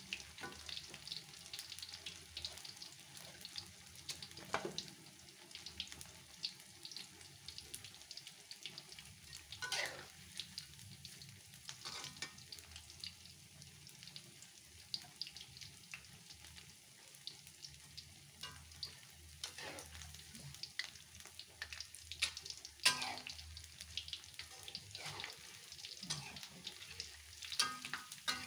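Corn fritters (bakwan jagung) deep-frying in a wok of hot oil: a steady sizzle full of small crackles, with now and then a sharper scrape or knock of the metal spatula and slotted skimmer against the wok.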